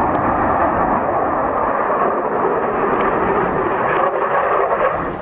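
Loud, steady aircraft engine noise, easing off slightly near the end.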